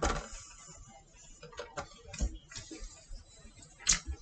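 Scattered light clicks and taps of small items being handled and set down on a table, with a sharper tap at the start and another near the end.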